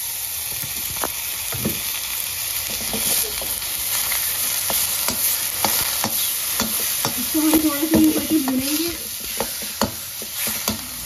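Raw minced meat sizzling in a hot, dry karahi with no oil, while a metal spoon stirs and breaks it up, clicking and scraping against the pan.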